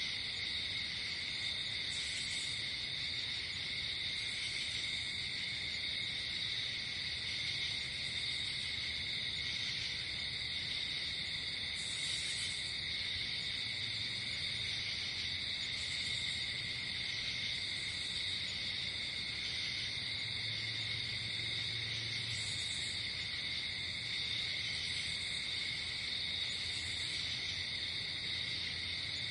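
Night chorus of crickets and other insects: a continuous trilling at two steady pitches, with short higher-pitched buzzes recurring every few seconds.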